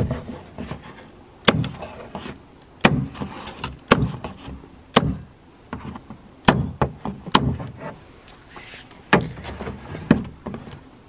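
Electric staple gun firing staples through cardboard into wood, about nine sharp snaps at uneven gaps of roughly a second, each with a short hollow knock from the garbage can it is fired in.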